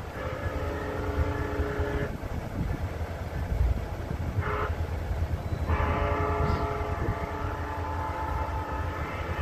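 Approaching train's multi-tone horn blowing the grade-crossing signal: a long blast, a short one about four seconds in, then a long blast held for about four seconds. A steady low rumble runs underneath.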